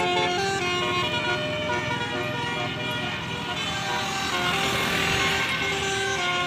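Basuri multi-tone "telolet" horn playing a melody: several horn tones sound together and step from note to note without a break.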